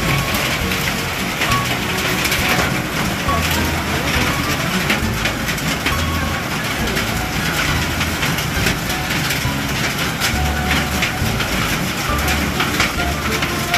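Heavy downpour mixed with hail: a steady rush of rain dotted with many sharp taps of hailstones striking. Low rumbles come and go underneath.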